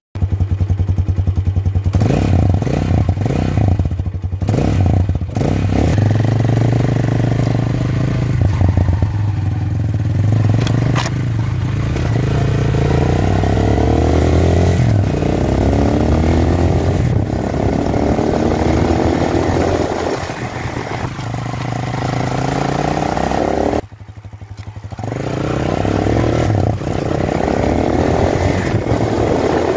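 Big Boy TSR 250 motorcycle on its stock exhaust being ridden, the engine running under load with its pitch rising again and again as it pulls through the gears. About three quarters of the way through the engine sound drops sharply for about a second, then comes back up.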